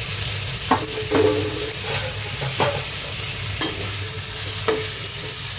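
Onions, chopped tomatoes and green chillies sizzling in hot oil in a non-stick kadai while a metal spatula stirs them, scraping and clinking against the pan about once a second.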